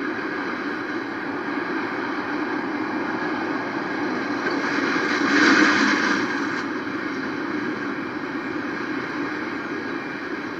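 Freight train cars rolling past at a street crossing, a steady rumble and clatter. About halfway through, a road vehicle passing closer swells louder for a second or two.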